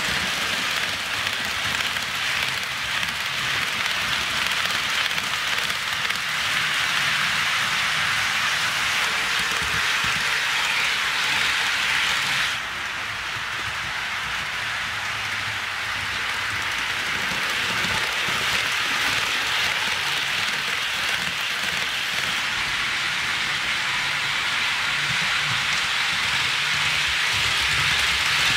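HO scale model trains rolling along sectional track: a steady hissing clatter of small metal wheels on the rails. It drops slightly about twelve seconds in, then slowly builds again.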